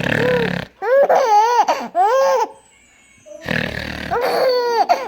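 Baby laughing hysterically in loud, high-pitched bursts that rise and fall in pitch. Twice, at the start and about three and a half seconds in, a short low, rough noise made by the father sets off the laughter.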